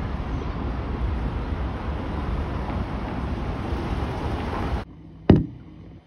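Steady outdoor city background noise with traffic rumble, which cuts off abruptly near the end; a single loud knock follows.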